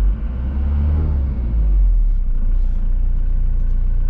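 Tata Xenon pickup's diesel engine idling steadily, heard from inside the cab, on its first run after sitting about eight months. The low rumble swells briefly about a second in, then settles back.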